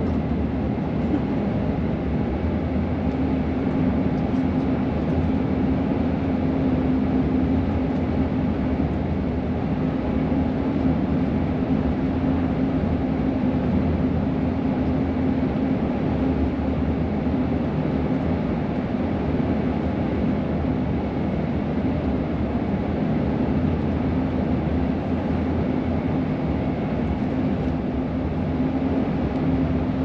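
Car driving along a road: steady tyre and engine noise with a low, steady hum.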